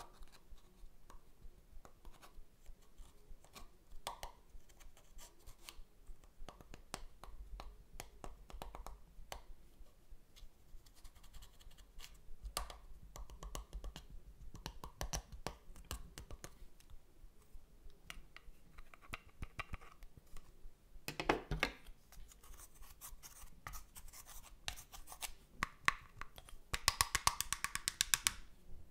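Pressed eyeshadow powder being crumbled and scraped out of a plastic palette with metal tweezers: a run of small scratching, crackling clicks and taps of metal on the pans. There is a louder scrape about three-quarters of the way through, and a quick burst of rapid scraping near the end.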